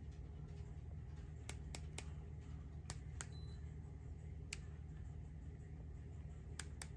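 Ceiling fan running with a steady low hum, with about eight light, sharp clicks scattered through.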